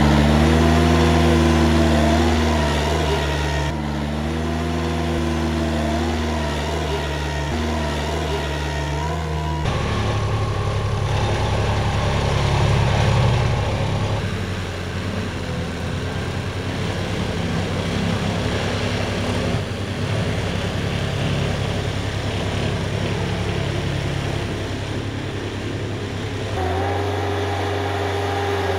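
Engine of a Vermeer PTX44 ride-on utility tractor running steadily under load. Its note changes abruptly a few times, and near the end the tractor is pulling its plow blade through the soil.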